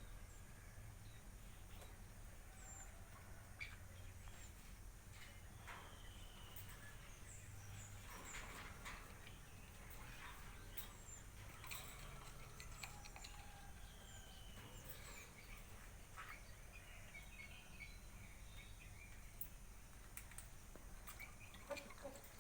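Faint, scattered bird chirps, short high calls now and then, over a steady low hum, with a few brief clicks.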